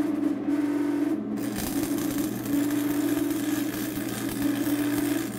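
Stick-welding arc from a Lincoln 225 welder, crackling and sizzling steadily once the arc catches about a second and a half in, as a steel pipe coupler is welded onto a quarter-inch steel plate. A steady low hum runs underneath.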